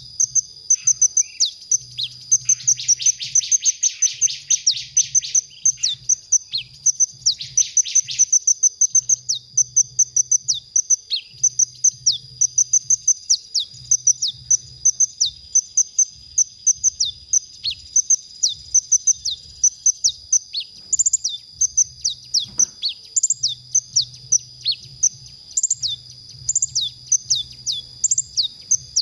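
Male kolibri ninja (van Hasselt's sunbird) singing a fast, unbroken run of high, thin chirps and down-slurred notes. Buzzy trills come in at about three and seven seconds in.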